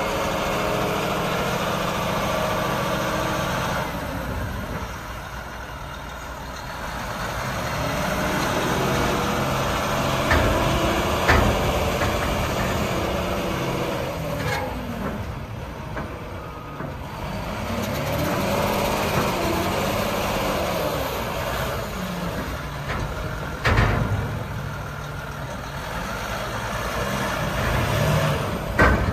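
Volvo A40G articulated dump truck's diesel engine running as the truck drives, its pitch rising and falling several times with throttle and gear changes. A few sharp thumps stand out, about a third of the way in, and twice near the end.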